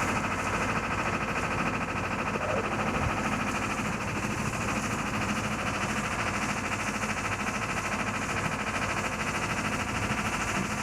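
Sailboat's Volvo Penta MD11C two-cylinder diesel running steadily at low speed, a constant even pulsing drone.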